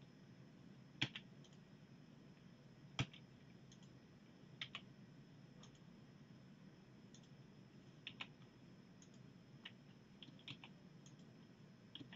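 Quiet, scattered clicks of a computer keyboard and mouse: single keystrokes and clicks every second or two, the sharpest about three seconds in.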